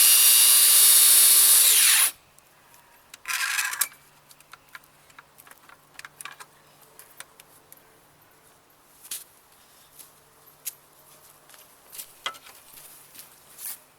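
Track saw running through a thick sycamore slab, stopping abruptly about two seconds in. A short burst of the saw follows about a second later, then light clicks and knocks of handling.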